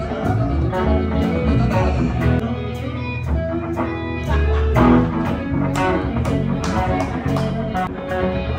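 A band playing live: electric guitars through amplifiers over bass, with a steady beat of sharp hits.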